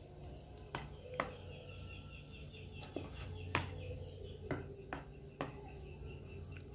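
A spoon knocking lightly against a plastic bowl and tub, about seven separate clicks, as battered nugget pieces are lifted out of the batter and laid in breadcrumbs. Faint bird chirping runs underneath.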